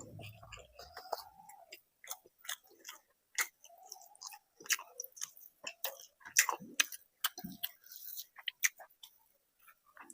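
A person chewing food with the mouth close to the microphone: irregular wet smacks and clicks of eating.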